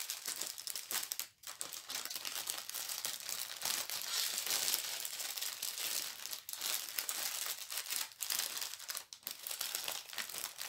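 Plastic packaging crinkling steadily as it is handled, broken by a few brief pauses. These are the plastic bags and wrapping of a diamond-painting kit.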